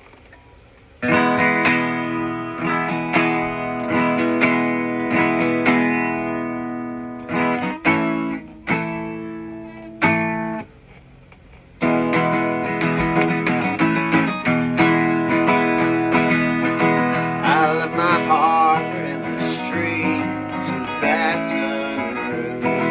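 Acoustic guitar strummed as a song intro, starting about a second in, stopping briefly near the middle and then playing on steadily.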